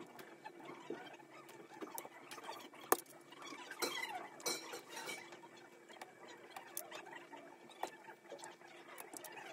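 Small scattered clicks, taps and scrapes of a soldering iron tip and pliers working on a circuit board, desoldering and pulling out 1N4007 diode leads; the busiest clicking is about three to four and a half seconds in, over a faint steady hum.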